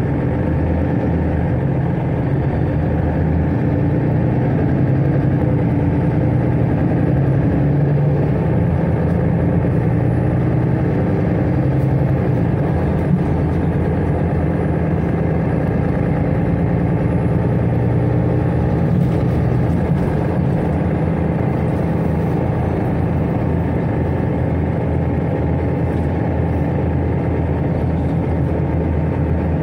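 Mercedes-Benz Citaro city bus under way, heard from inside the cabin: a steady low drone of engine, drivetrain and road noise. A faint high whine rises and falls slowly through the middle.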